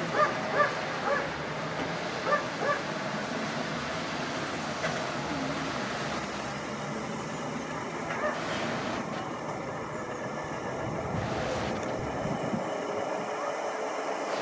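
Heavy truck engine running with a steady rumble as the loaded truck and trailer pull away. A dog barks five or six times in the first three seconds.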